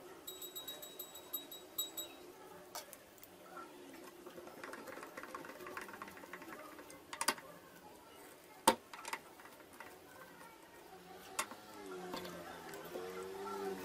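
Small handling sounds as wooden parts are fitted and a screw is turned with a hand screwdriver: scattered light clicks and knocks, a quick run of fine ticks around five to six seconds in, and one sharp click a little before nine seconds.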